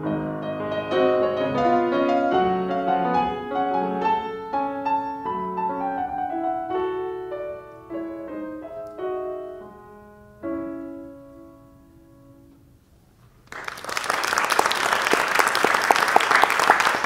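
Grand piano playing the closing bars of a solo piece, ending on a final chord about ten seconds in that rings and fades away. A couple of seconds later an audience breaks into applause that continues to the end.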